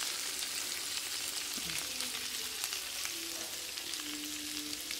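Bone-in chops sizzling on a hot electric contact grill: a steady frying hiss with fine crackling.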